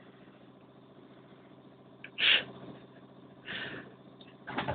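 Steady low hum of a ship's engine, with two short, loud noisy bursts about two and three and a half seconds in.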